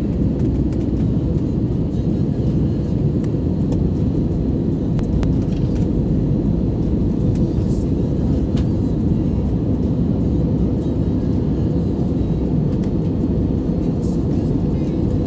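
Steady low rumble of an airplane, unchanging throughout, with a few faint clicks.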